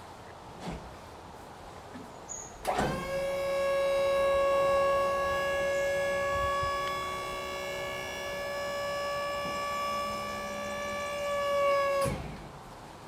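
Electric motor whining steadily as it tilts an enclosed trailer body back onto its rear for loading. The whine starts abruptly, runs for about nine seconds, and drops slightly in pitch just before cutting off.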